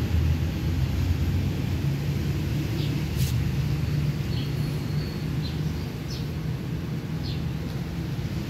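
A steady low rumble with a few brief, faint high chirps over it.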